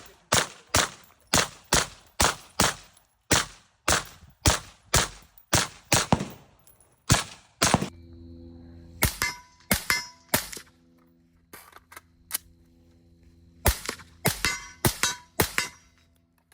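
Gunfire: a rapid string of shots, two to three a second, for about eight seconds. Then a few spaced groups of shots over a steady low hum.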